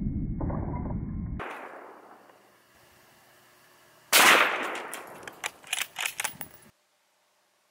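A single .223 rifle shot about four seconds in, dying away in an echo and followed by a few light sharp clicks. Before it, for the first second and a half, there is a dull low rumble.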